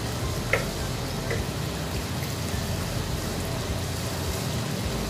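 Tomato and spice masala with fried onions sizzling in hot oil in a cooking pot, a steady hiss, with two small clicks in the first second and a half.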